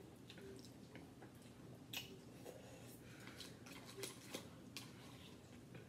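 A fork clicking and scraping against a plastic bowl while twirling noodles: a few light, scattered clicks, the sharpest about two seconds in and a quick cluster around four seconds.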